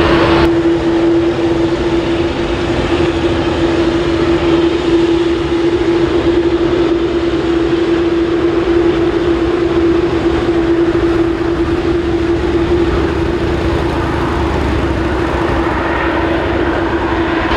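Boeing 787-8's turbofan engines (GE GEnx-1B) running at low taxi power as the airliner rolls along the runway: a steady mid-pitched whine over a broad, even rumble that neither rises nor falls.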